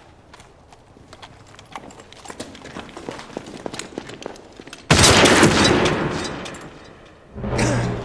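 Gunfire from a war-film soundtrack: scattered sharp cracks, then a sudden loud blast about five seconds in that fades over about two seconds, and another loud burst near the end.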